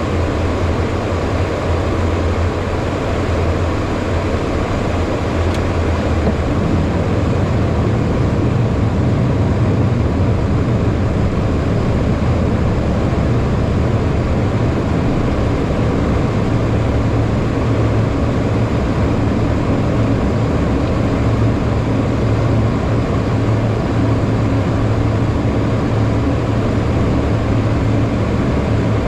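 Steady cockpit noise inside a HondaJet in flight: an even rush of air with a low hum from its twin GE Honda HF120 turbofan engines.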